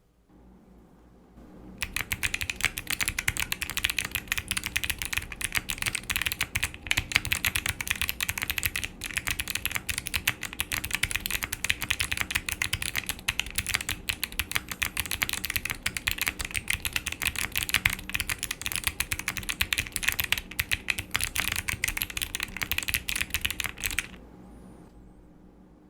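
Typing on a QK65 mechanical keyboard with Kailh Box Jade clicky switches, POM plate and PBT keycaps: a fast, dense run of sharp keystroke clicks. It starts about two seconds in and stops a couple of seconds before the end.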